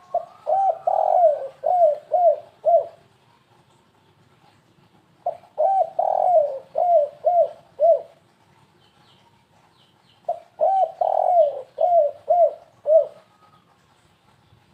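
Spotted dove (tekukur) cooing in the stuttering three-note 'kuk 3 gagap' style, the call used as a lure for wild doves. Three phrases about five seconds apart, each a quick run of about six coos.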